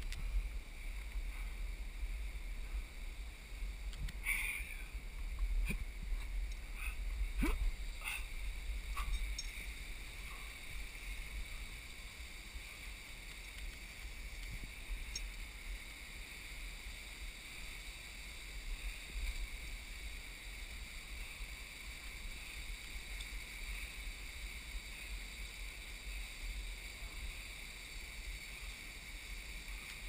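Steady low rumble of wind and handling noise on a head-mounted action camera, under a steady high hiss. A handful of sharp knocks come between about four and nine seconds in, as hands and gear meet the rock.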